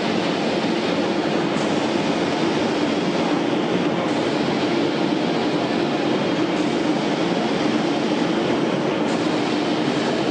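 Steel strip slitting line machinery running with a steady, even mechanical drone.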